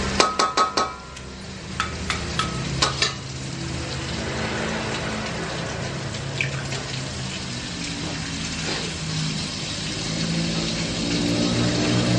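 A metal spatula clanks and scrapes against a steel wok in a quick run of sharp knocks, with a few more a couple of seconds later, then a steady frying sizzle from the wok. A low engine hum grows louder near the end.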